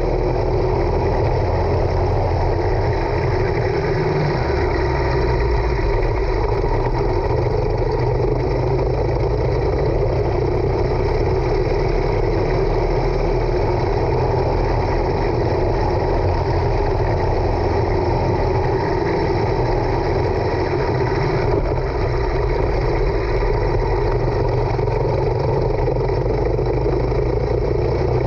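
Racing go-kart engine running steadily under load, heard through a camera mounted on the kart, as a loud, even drone with rushing noise and no clear rise or fall in pitch.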